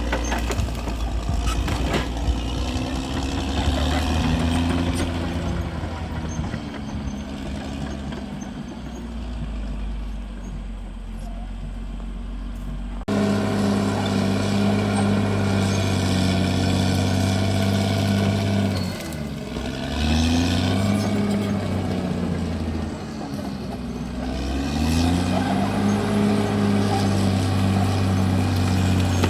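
Caterpillar D6R XL bulldozer's diesel engine working under load. The sound becomes abruptly louder about halfway through. After that the engine pitch sags and climbs back twice as the engine lugs and recovers.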